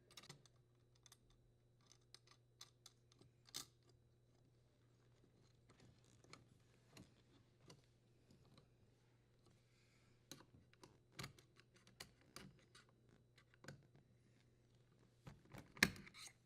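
Faint, irregular small clicks and taps of hands working on the dishwasher's electrical junction box: the strain relief nut being tightened and the wires being handled. The clicks come thickest around two-thirds of the way through and are strongest just before the end.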